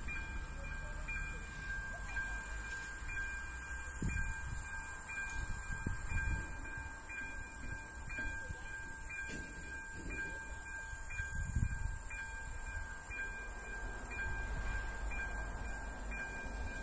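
AŽD 97 level-crossing warning signals' ZV-02 electronic bell ringing with a repeated steady chime tone while the red lights flash, warning that a train is near the crossing. Wind buffets the microphone in low rumbling gusts.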